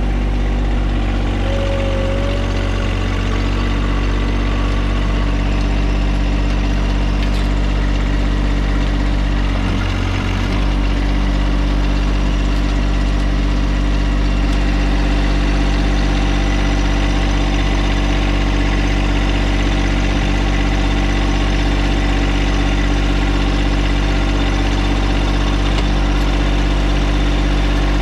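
John Deere compact tractor's diesel engine idling steadily, heard close up, with a brief dip in the low rumble about ten seconds in.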